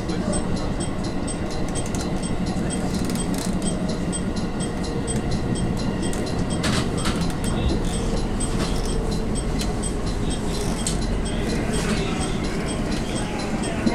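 Steady running noise heard inside a JR West 221 series electric train in motion: wheels rumbling on the rails along with the traction motors and gears, with a few brief clicks from the running gear.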